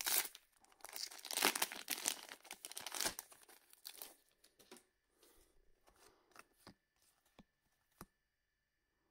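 Trading card booster pack wrapper torn open and crinkled for about four seconds. The cards are then slid out and handled, with soft rustles and a few sharp clicks.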